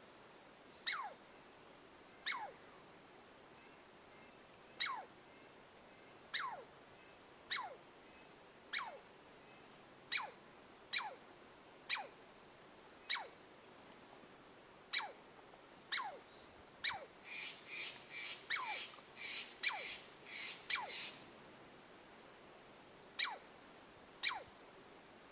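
An animal calling over and over: short, sharp calls that drop quickly in pitch, about one a second, with a quick run of chattering notes a little past the middle.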